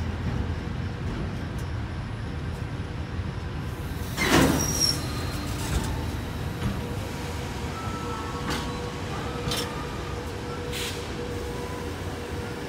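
Container freight train rolling slowly past, mostly empty flat wagons: a steady rumble of wheels on rail, with one loud knock about four seconds in and a few sharp clicks later on.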